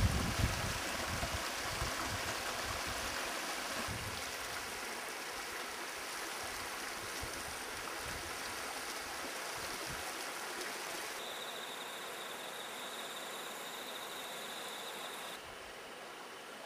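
Shallow mountain stream flowing steadily, with low rumbles in the first few seconds. A steady high buzz joins for about four seconds in the second half, and the sound drops in level near the end.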